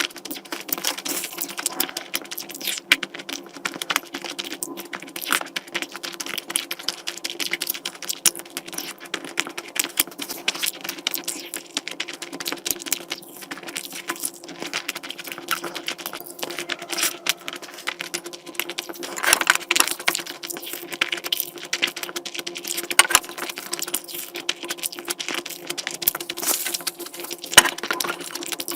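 Close-miked chewing and eating sounds: dense, irregular wet clicks and crunches from a mouth working through food, over a steady low hum.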